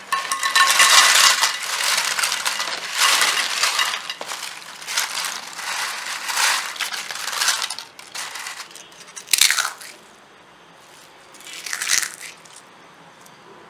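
Thin homemade fried potato chips crackling and rustling as they are tumbled and stirred by hand for several seconds, then two short sharp crunches, about 9.5 and 12 seconds in, as handfuls are crushed in a fist. The crunch is the sign that the chips are fully crisp.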